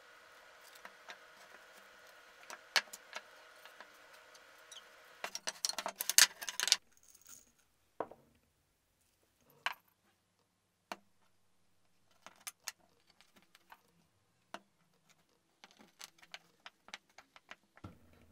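Taped-together plywood layers being pried apart with a thin metal tool: scattered clicks over a faint steady hum, then a burst of cracking and scraping about five seconds in as the layers come apart. After that come sparse single knocks and clicks of plywood strips and wooden dowels being handled and set down on the wooden bench.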